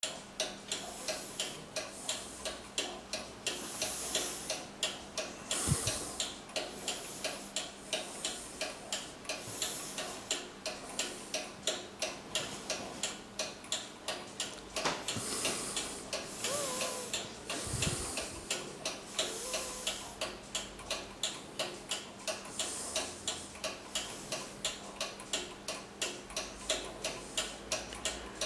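Antique 18th-century Pierre Jaquet-Droz table clock with a short swinging front pendulum (a 'Zappler'), ticking steadily at about three ticks a second.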